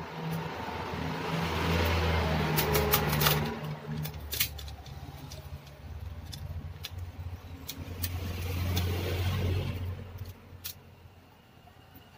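Sharp plastic clicks and snaps from hands prying at a laptop's keyboard top case, its keyboard held in by plastic locks. Under them a low rumbling noise swells and fades twice.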